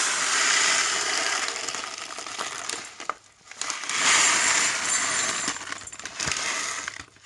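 Dry raw buckwheat groats pouring from a plastic bag into a glass bowl, a steady rushing patter of grains on glass. It comes in two pours, breaking off briefly about three seconds in.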